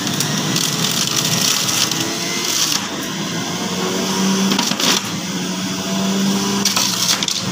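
Electric juicer running, its motor humming steadily as beetroot and orange pieces are pushed down the chute and ground, with a few short sharp cracks scattered through.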